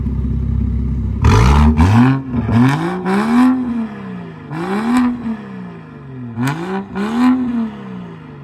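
BMW 335i's N54 inline-six through a straight-piped exhaust, idling with a deep rumble and then blipped about six times, the pitch climbing and falling back on each rev with a harsh rasp at the peaks. This is the tune's burble map left on, so the raw exhaust note carries some burble.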